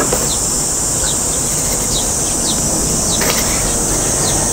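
A steady high-pitched drone of insects, with a bird giving short falling chirps about every half second.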